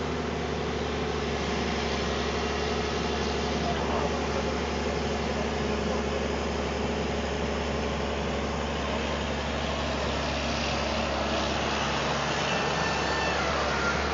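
Heavy diesel engine running steadily at a low, even hum, typical of the excavator or sand truck working at the river.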